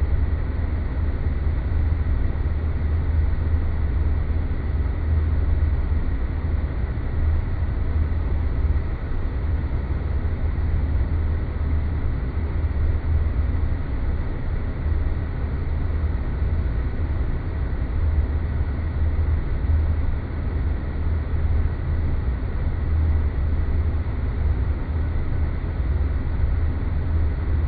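Space-planet ambience sound effect: a steady deep rumble under an even bed of noise, with a faint thin high tone held steady above it.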